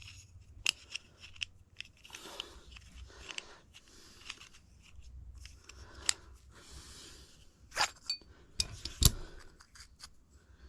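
Clicks, scrapes and clinks of a vintage pipe wrench's metal parts being handled and taken apart, with a sharp knock about nine seconds in.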